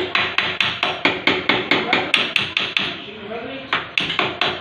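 Rapid hammer taps on the sheet metal of a Nissan Sunny door, about five a second, beating out a dent cold without heat. The tapping breaks off briefly a little past halfway, then starts again.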